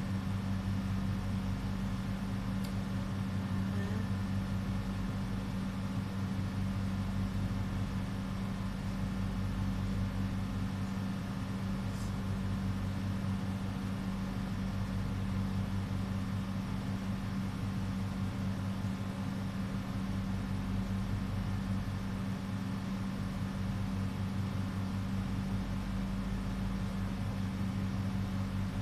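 A steady low machine hum with two low tones, unchanging in pitch and level.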